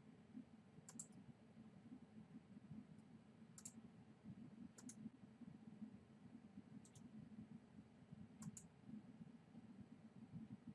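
Faint computer mouse clicks, about five spaced a second or two apart, most of them in quick pairs, over a steady low hum.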